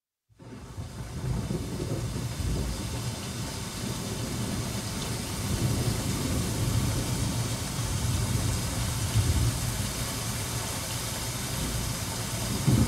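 Ambient intro of a death metal recording: a steady low rumble under an even hiss, fading in over the first second and holding level, with no instruments or voice yet.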